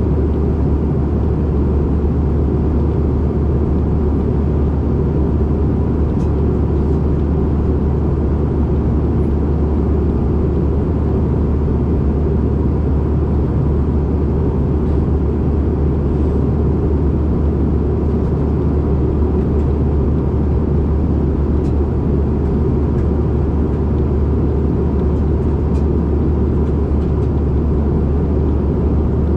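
Steady cabin drone inside a CRJ-550 regional jet in flight: its rear-mounted turbofan engines and the airflow over the fuselage, heard as an even, deep rumble that does not change in level.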